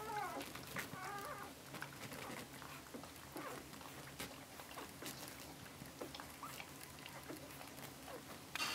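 Newborn cocker spaniel puppies, eleven days old, squeaking twice in the first second and a half while nursing, the first squeak falling in pitch. Soft clicks and rustling on the bedding follow, with a short burst of noise near the end.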